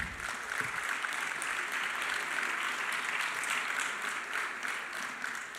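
Audience applauding, a steady patter of many hands clapping that thins out near the end.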